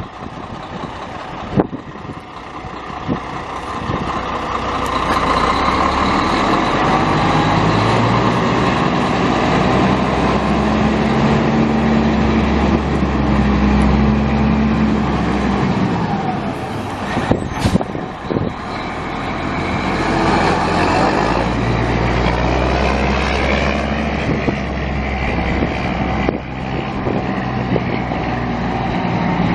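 Caterpillar six-cylinder turbo diesel of a large applicator truck running under power. The engine speed climbs over the first several seconds and holds. Just past halfway it drops, with a sharp click, then climbs again.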